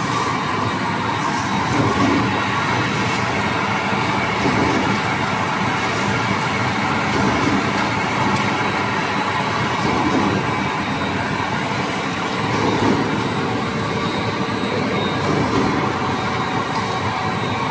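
Paper straw production line machinery running: conveyors, dryer and straw feeder making a steady mechanical noise with faint steady tones.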